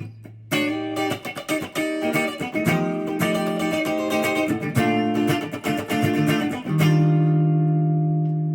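Ibanez Artist AR300 electric guitar played through an amplifier: a quick run of picked notes, then a chord struck near the end and left to ring.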